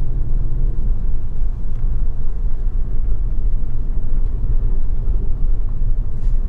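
Cabin noise of a lowered Ford Focus ST driving a rough dirt road: a steady engine hum under a low rumble of tyres and road.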